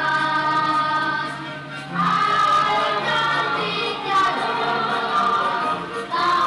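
Music with a choir of voices singing long held notes.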